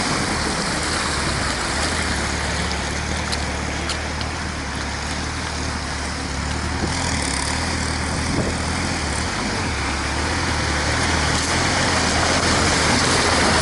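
Off-road vehicle driving: a steady low engine drone with a broad hiss of road and wind noise over it.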